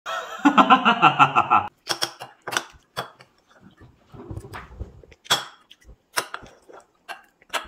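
A man laughing, then a metal spoon clicking and scraping against a small ceramic bowl several times as a child eats from it.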